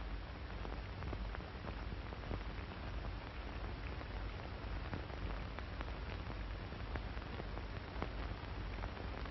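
Background noise of an early-1930s optical film soundtrack: a steady hiss over a low hum, dotted with scattered crackles and pops.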